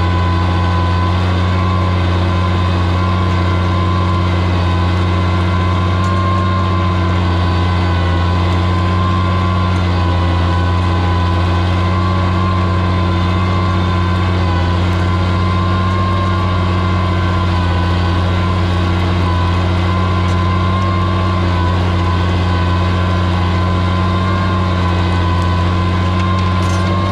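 Oliver 77 tractor's six-cylinder engine running steadily under load as it pulls a multi-bottom plow through the soil, with an even low drone and a steady whine above it.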